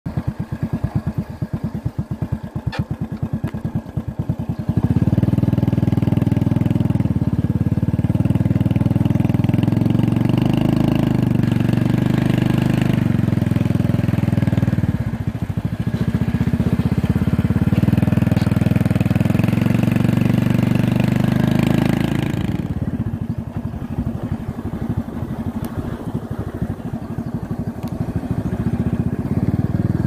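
Motorcycle engine running with a choppy, pulsing beat for the first few seconds, then pulling steadily and louder from about five seconds in. It eases off about two-thirds of the way through and settles to a rougher, slightly quieter run.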